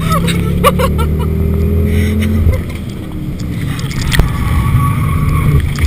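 Ford Focus RS engine heard from inside the cabin at full throttle, its pitch rising for the first two seconds. It eases off and goes quieter for a moment, with a single knock, then pulls hard again near the end.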